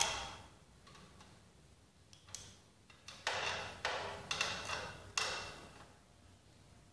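A hand brushing and knocking against a glass fluorescent tube in its fitting, making about six short scraping, rustling noises, most of them between two and six seconds in. A faint steady low hum runs underneath.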